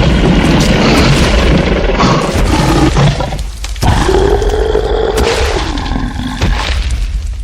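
Dinosaur roar sound effect: a long, loud roar, a brief break about three and a half seconds in, then a second roar with a pitched tone that rises and falls.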